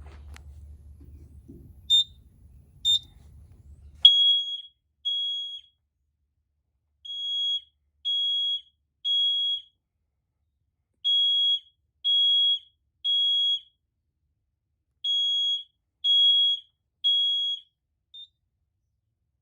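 Gentex GX90S-4 horn strobe's electronic horn sounding a loud, high-pitched temporal-3 evacuation pattern: three half-second beeps a second apart, then a pause, repeated four times. Two short chirps about a second apart come first, and the horn stops near the end.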